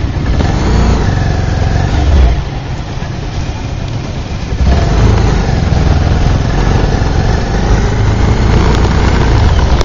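Motorbike engine running while riding slowly through traffic, with road noise and a strong low rumble. It gets louder about five seconds in.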